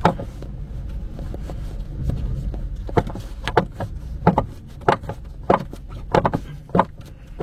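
Loose plastic A-pillar trim of a VW T6.1 bus clicking and knocking against the body as a strip of foam rubber is worked in behind it, with a sharp click at the start and a run of irregular knocks about every half second from about three seconds in. The trim's retaining tabs have slipped out, which leaves it loose enough to rattle.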